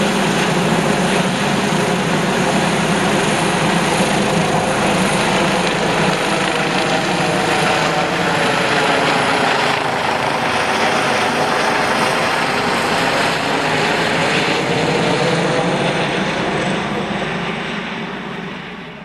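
Airbus H145 (EC145 T2) rescue helicopter flying overhead: the steady, loud running of its twin turbines, main rotor and Fenestron tail rotor, fading out near the end.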